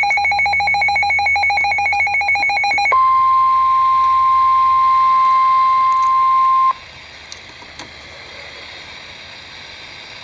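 NOAA Weather Radio emergency alert opening. First comes the SAME digital header, a rapid stuttering data burst of electronic tones. About three seconds in, it switches to the steady 1050 Hz warning alarm tone, which cuts off suddenly after about four seconds and leaves quieter radio static hiss.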